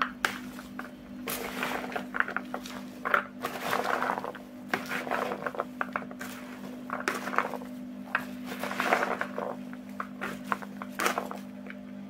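Soaked raw chickpeas with chopped onion and parsley being stirred and turned over in a plastic basin, with a spoon and by hand: irregular rustling, scraping and small clicks of the chickpeas. A steady low hum runs underneath.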